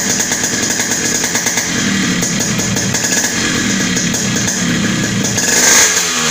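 Yamaha RX100's two-stroke single-cylinder engine running and being revved. The revs climb to a loud peak near the end, then just begin to fall.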